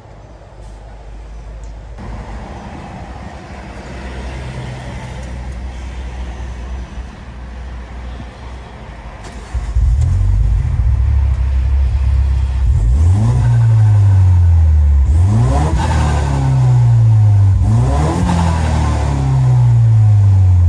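Peugeot 208 GT's 1.6 THP turbocharged four-cylinder running, then loud from about ten seconds in and revved hard three times, each rev rising sharply and falling back slowly. Its blow-off valve spring has been tightened so that the turbo flutters when the throttle is released.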